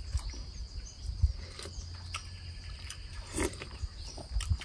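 Insects droning steadily at a high pitch, with scattered short clicks and rustles and low thumps from someone moving about; the thumps are loudest about a second in and near the end.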